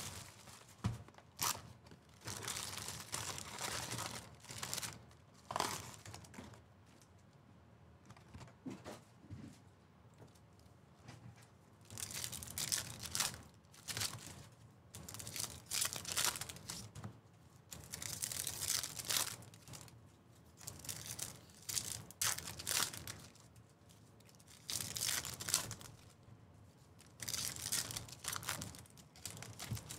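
Foil trading-card packs and the box's plastic wrap being torn open and crinkled by hand. The crinkling comes in repeated bouts of a few seconds each, with a quieter stretch in the middle.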